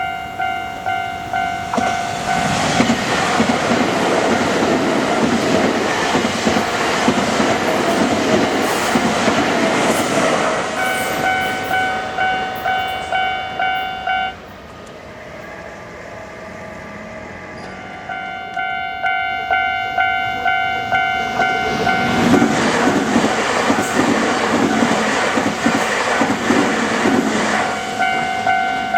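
A Japanese level crossing's electronic warning bell rings in a steady repeating ding, about one and a half times a second. A train rushes and rattles over the crossing and swamps the bell. About halfway through, the bell stops for a few seconds, then starts again as a second train passes.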